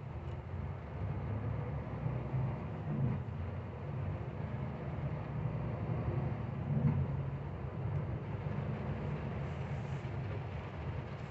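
Truck's diesel engine running steadily, heard from inside the cab as it pulls along a wet highway, with a steady hiss of tyres and rain over the low drone. The pitch rises briefly a couple of times as it gathers speed.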